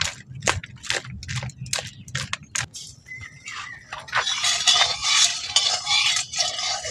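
A run of short clicks and knocks, then from about four seconds in a metal spatula scraping and clinking around a steel kadai of heating oil, the loudest part.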